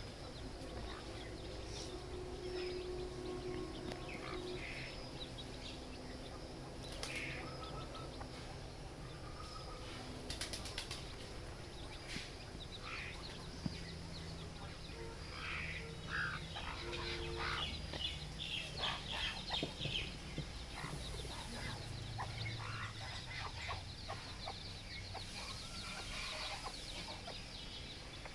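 Baby chicks peeping: many short, high chirps, coming in quick overlapping flurries in the second half, over a faint low hum.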